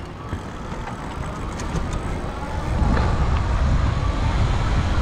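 Wind buffeting the microphone as an electric bike rides off. The low rumble grows markedly louder about three seconds in as the bike gathers speed.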